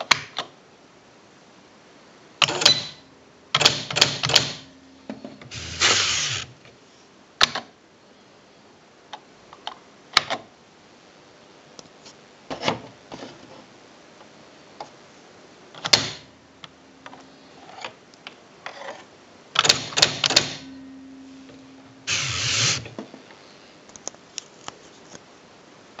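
Silver Reed EX133MD electronic typewriter working: bursts of sharp mechanical clatter, a few seconds apart, with single clicks between them, and a low motor hum under two of the bursts.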